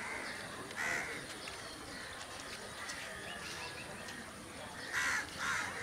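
Birds calling over steady background noise: a short call about a second in and two more close together near the end, with faint chirping in between.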